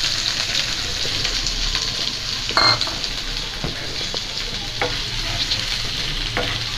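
Chopped onions sizzling in hot oil in a non-stick frying pan, a steady hiss with scattered pops. Near the end a wooden spatula starts stirring them.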